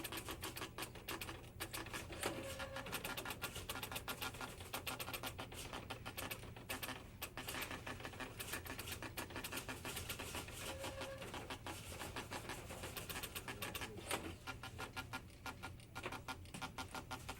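Newsroom teletype machines chattering: a dense, unbroken stream of rapid mechanical clicks over a low hum, with a brief steady tone sounding twice.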